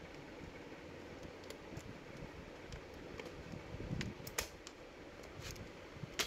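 Scattered light clicks and taps of a screwdriver and hands on a laptop's plastic case as its back cover is taken off, over a faint steady hum. The loudest clicks come about four seconds in.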